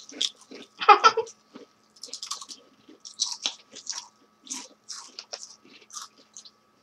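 Several people biting into and chewing crisp Lay's potato chips, a run of irregular crunches with the loudest bite about a second in.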